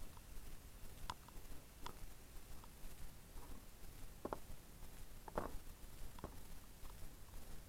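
Sparrows pecking seed at a window bird feeder: faint, scattered small taps and scuffles, roughly a second apart, a little louder around the middle.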